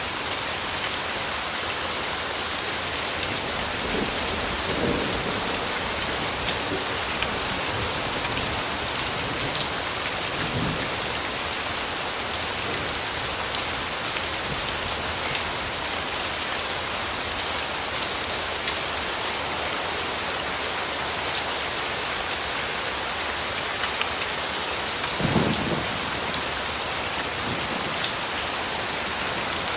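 Steady rain falling, with the fine patter of individual drops. A few brief low thumps stand out, the loudest about twenty-five seconds in.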